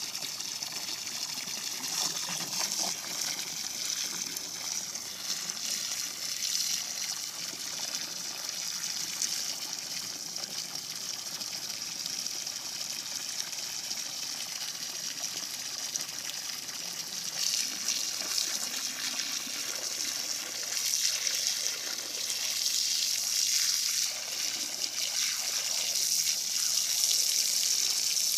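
Jet of water from a garden hose spraying and splashing onto the water's surface, a steady hiss that grows louder in the second half.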